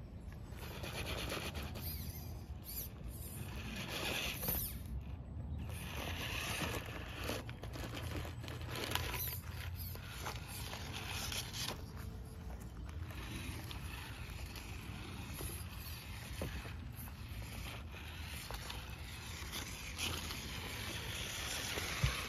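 Axial Capra RC rock crawler's small electric motor and drivetrain whirring as its tires scrape and grip their way over logs and wooden boards, with a run of small scuffs and knocks and one sharp knock near the end.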